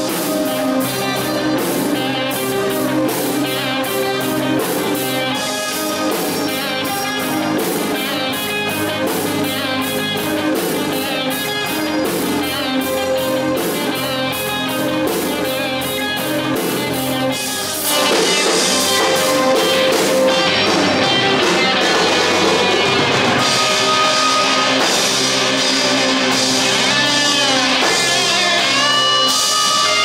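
Live instrumental heavy-metal/rock played by a trio on electric guitar, electric bass and drum kit, with a steady drum beat under guitar lines. About eighteen seconds in the band comes in louder and fuller, with a wash of crash cymbals.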